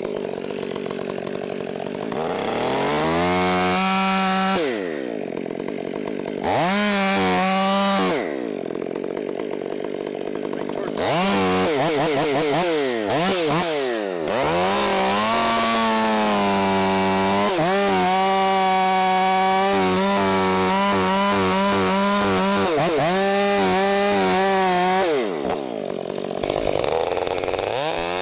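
Two-stroke chainsaw cutting into a large black cherry tree. It revs up in short blips early on, then holds at full throttle for over ten seconds with the engine note wavering in the cut, and drops back to idle near the end.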